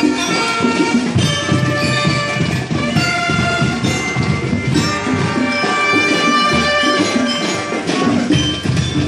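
School marching band playing: a held, many-voiced melody over drums and percussion keeping a steady beat.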